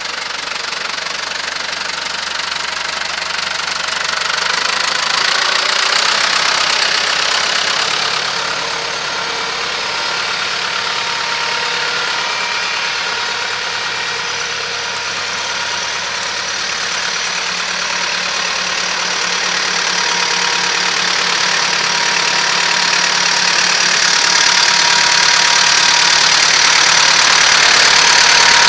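New Holland TS110 tractor's diesel engine idling steadily, growing somewhat louder over the last several seconds.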